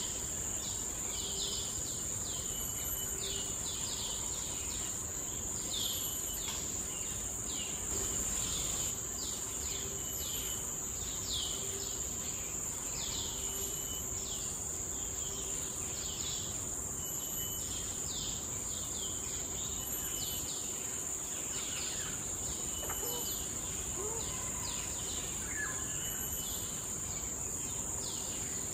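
Forest ambience: insects droning steadily at a high pitch, with a run of short repeated chirping calls that thins out near the end.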